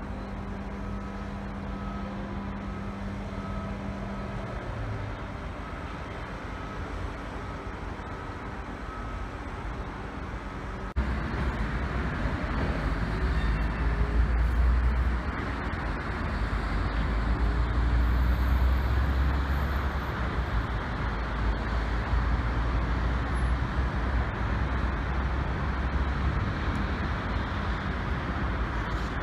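City road traffic heard from high above as a steady hum of cars. About eleven seconds in it suddenly gets louder, with a deep rumble.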